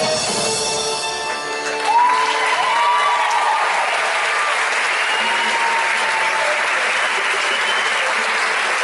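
A student tuna band's song ends in its first couple of seconds, and a crowd breaks into steady applause with a few cheers over it.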